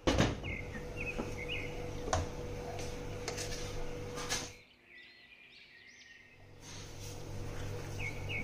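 Kenwood mini chopper's electric motor running as it grinds spiced mutton mince, with a few clicks, stopping about four and a half seconds in. Birds chirp faintly in the background.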